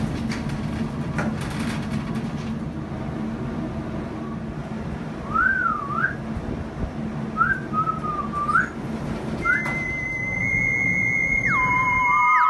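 A short, wavering whistled tune over a steady low hum, about five seconds in. Near the end, theremin-like electronic music tones come in, one of them sliding down in pitch.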